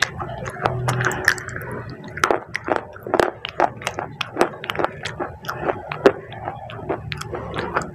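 Close-up wet crackling and clicking of cola-soaked baked clay being chewed, with quick irregular clicks several times a second.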